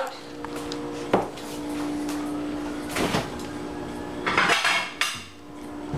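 Kitchen handling sounds: a sharp knock about a second in, then scuffing clatter of cookware being moved about, over a steady low hum.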